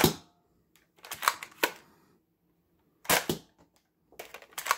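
Nerf Elite foam-dart blaster being primed and fired: sharp plastic clicks and snaps in several groups, one right at the start, a cluster about a second in, another about three seconds in, and a quick run near the end.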